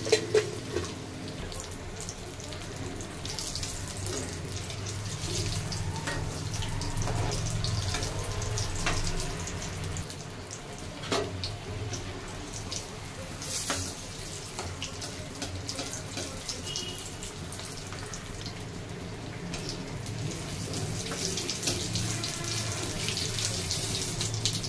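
Hot oil sizzling steadily around a breaded sweet corn cutlet shallow-frying in an aluminium kadai. A steel ladle taps and scrapes against the pan now and then.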